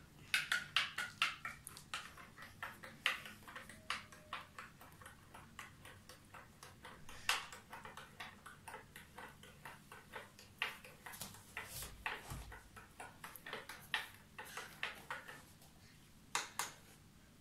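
A spoon stirring a wet baking-soda, detergent and dye mix in a small cup, clinking and ticking irregularly against the cup's sides a few times a second, stopping shortly before the end.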